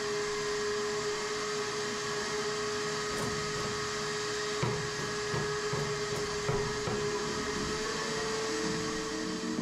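Hand-held power grinder sanding the fiberglass inside a boat hull: a steady, high whine over a gritty hiss, with a few short scrapes as the tool is worked over the surface. Music fades in near the end.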